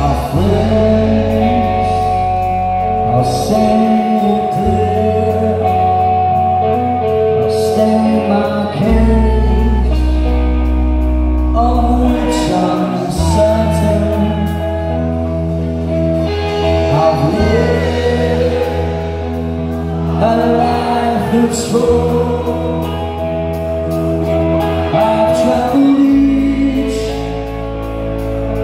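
Live rock band playing, with a male lead singer over held electric guitar chords and a strong bass line.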